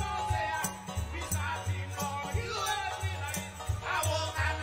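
Music with a steady beat: a bass line, a shaker-like rattle striking about three times a second, and a melody over it.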